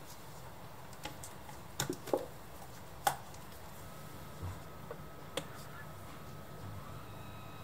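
Snap-on lid of a small plastic tub being pried off, with a quick series of sharp plastic clicks and snaps, then a couple of lighter clicks a few seconds later as the contents are stirred.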